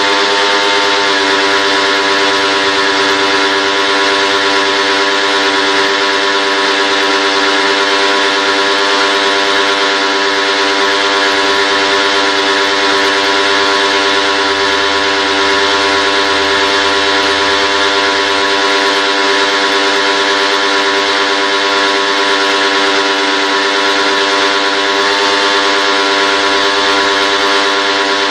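A machine running steadily: an unchanging droning hum with a loud hiss over it.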